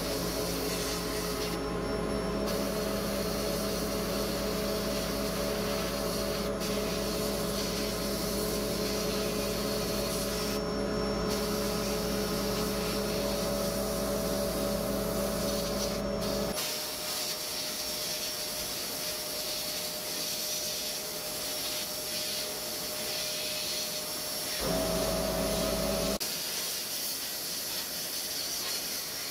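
Sandblasting in a blast cabinet: a steady hiss of abrasive from the nozzle against rusty metal parts, stopping briefly twice, over the hum of a motor. The hum cuts out a little past halfway, comes back for a moment near the end, then stops while the hiss goes on.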